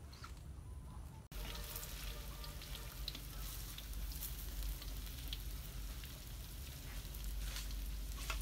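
Battered shredded banana blossom frying in hot oil in a wok, a steady sizzle with many small crackles, starting suddenly about a second in.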